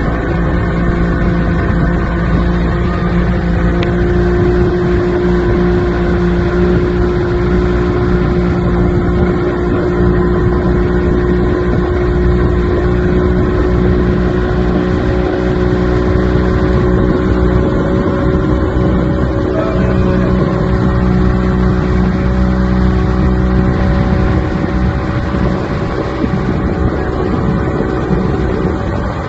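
Motorboat engine running steadily at speed while towing a banana boat, a constant drone holding one pitch.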